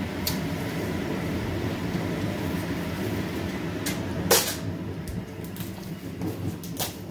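Dining-table noise: a steady low rumble in the room with scattered light clicks of tableware, and one sharp knock about four seconds in.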